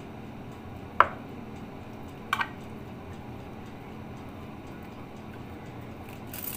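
A metal spoon clinking against a glass baking dish while sauce is spooned over food: one sharp clink about a second in and a quick double clink just over two seconds in, over a faint steady background noise.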